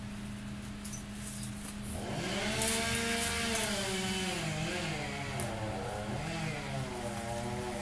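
Pole chainsaw running: a steady low note at first, then about two seconds in the motor speeds up and its pitch rises and sags again and again.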